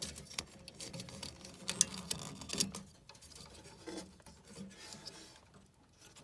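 Scattered small metal clicks, taps and scraping from handwork with a wrench, refitting a gas furnace's pilot assembly after its clogged pilot orifice was cleared; the sharpest clicks come about two seconds in and a little after.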